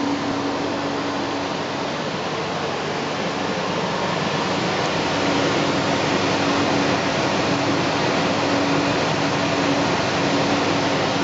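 Winterhalter GS501 commercial pass-through dishwasher, three-phase, powered up and running: a steady rushing noise with a low hum that grows a little louder about five seconds in.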